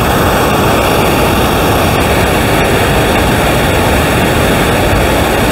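Whitewater of the Rhine Falls rushing over rock, a loud, steady roar of falling water.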